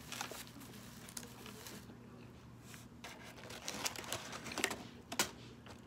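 Faint crinkling of a fast-food paper wrapper and bag, with scattered small clicks and crackles, a few louder ones in the second half.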